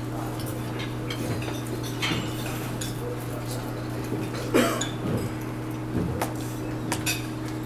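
Dishes and cutlery clinking at breakfast tables: scattered light clinks and knocks over a steady low hum.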